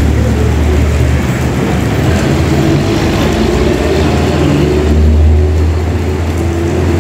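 Bus diesel engine running with a steady low rumble, with a hiss of wet road and rain over it.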